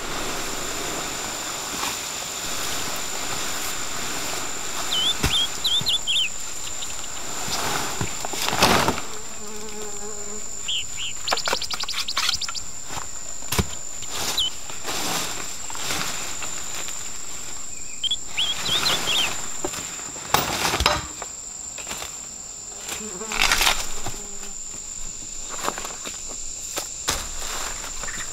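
A steady, high-pitched insect drone throughout, with scattered knocks and rustles as bamboo poles are handled and laid across the pit, and two brief clusters of short high chirps.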